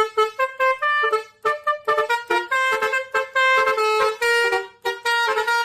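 Telolet bus horn, the musical multi-tone horn of Indonesian buses, playing a quick tune of short notes that jump between pitches.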